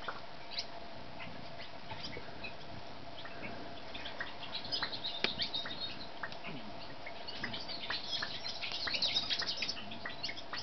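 Small birds calling: short, sharp chip notes scattered throughout, with two bursts of rapid, high twittering, one about halfway and a longer one near the end.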